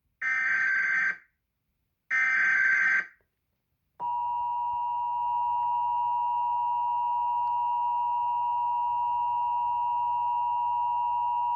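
Emergency Alert System test opening: two one-second bursts of buzzing digital data tones (the SAME header), then, about four seconds in, the steady two-tone EAS attention signal, held without a break.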